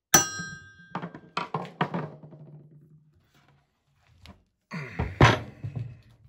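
A light hammer tapping a blunted chisel against a thin steel Speedi-Sleeve on a Ford 351 Windsor crankshaft's rear flange. The first blow rings metallically, then several quicker light taps follow, part of tapping all round the sleeve to expand it so it can be worked off. About five seconds in comes a heavier thunk with rubbing as the sleeve and crank are handled.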